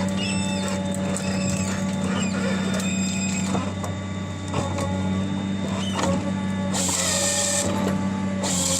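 A machine running with a steady low hum, with scattered clicks and knocks and two short bursts of hiss near the end.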